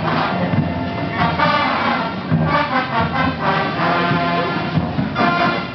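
Marching band playing, brass instruments (trumpets, trombones and sousaphones) carrying the tune over a steady rhythm.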